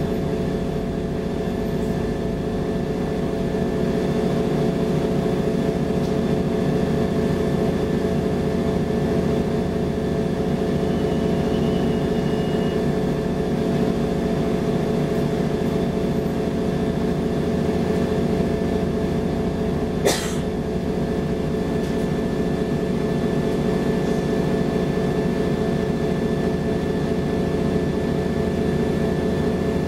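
Mercedes-Benz Citaro G articulated bus's OM 457 hLA diesel engine running steadily, heard from inside the passenger cabin as a low drone with a steady hum. A single sharp click comes about two-thirds of the way through.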